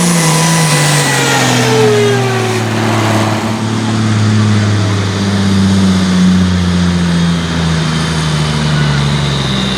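A pulling tractor's turbocharged engine at high revs, its pitch falling over the first three seconds or so as the revs drop, then running steady at a lower pitch. A high turbo whine winds down at the start.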